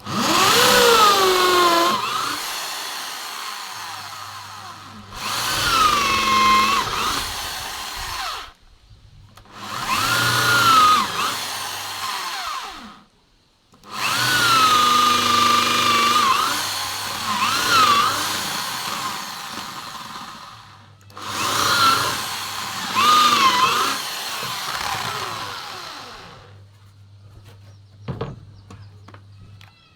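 Electric drill with an 8 mm bit boring a row of holes into wood to rough out a mortise, in five runs of a few seconds each: the motor winds up, its pitch sags and wavers as the bit cuts, then it stops. A few light knocks near the end.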